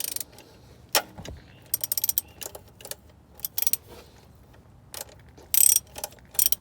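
Ratchet wrench with a 13 mm socket clicking in several short bursts as it works the oil pan drain plug loose, with one sharp knock about a second in.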